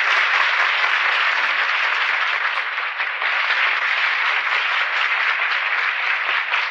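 Audience applauding steadily, heard on an old restored speech recording.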